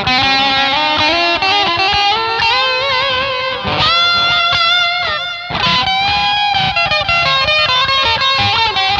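Electric guitar played through a Zoom G2.1u multi-effects processor with the Boss GE-7 equalizer switched off, playing a lead line of held notes with pitch bends and vibrato.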